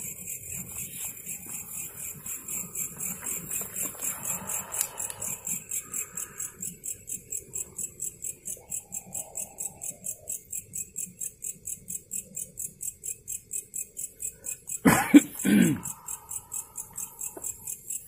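Night insects chirping in a steady high-pitched rhythm of about four pulses a second. About fifteen seconds in, a person makes two loud, short vocal sounds.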